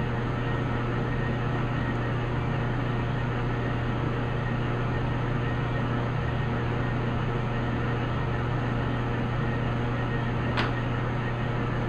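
Metal lathe running steadily with a low hum while a knurling tool rolls a diamond pattern into a steel workpiece lubricated with cutting oil. A single sharp click comes near the end.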